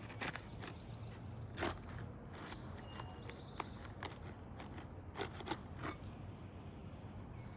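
Irregular crackles and sharp snaps of asphalt roof shingles' adhesive seal strips breaking as a flat tool is pried under them to lift the shingles.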